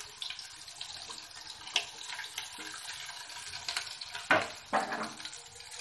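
Chopped vegetables sizzling in hot oil in a kadhai, a steady frying hiss. Two sharp knocks about three-quarters of the way in, as the steel plate of vegetables is tipped against the pan.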